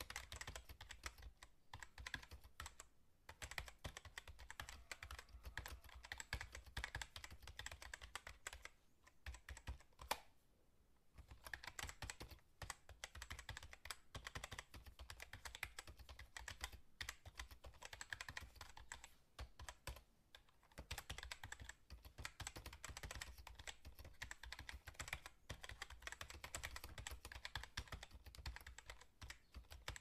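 Fast typing on a computer keyboard: a quick, dense run of key clicks, broken by a few short pauses, the longest about a third of the way in, just after one louder key press.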